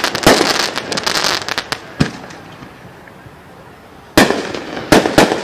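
Aerial firework shells bursting overhead. A dense run of rapid cracks and bangs fills the first couple of seconds, a single sharp bang comes at about two seconds, and after a short lull three more loud bangs come near the end.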